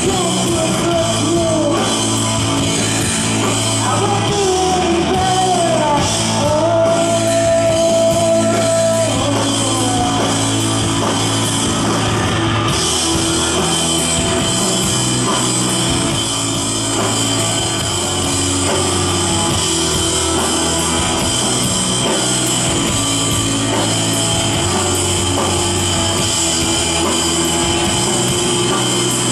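Loud live rock band playing: electric guitars, bass and drum kit with cymbals. In the first ten seconds a lead line slides up and down in pitch over the steady band.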